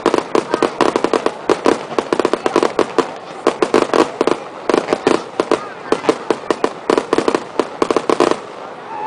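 Fireworks display going off in a rapid barrage: many sharp reports and crackles a second, stopping abruptly near the end.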